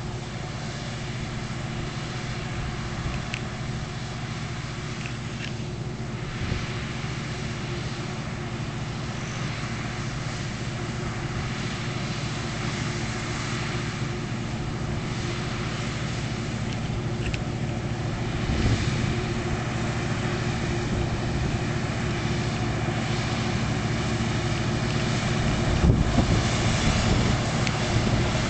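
Claas Mega 360 combine harvester running steadily while cutting wheat, its engine and threshing drone growing gradually louder as it approaches. A couple of gusts of wind buffet the microphone in the second half.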